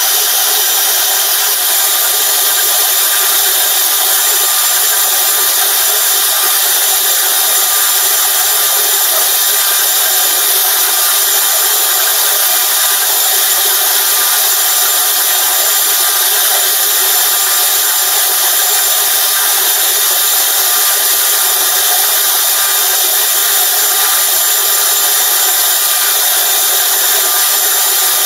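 CNC router spindle running and its bit cutting a rotating Styrofoam (EPS) block: a steady, unbroken hiss with thin, steady whining tones on top.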